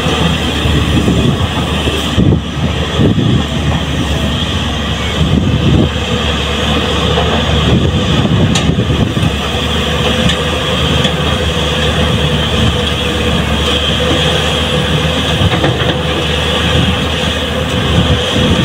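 JCB tracked excavator's diesel engine running steadily under load, with a steady hydraulic whine over it. Rougher, louder patches come between about two and six seconds in, as the bucket digs and dumps sand.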